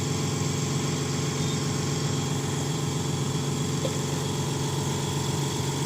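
Steady mechanical hum of running workshop machinery, an even drone that does not change.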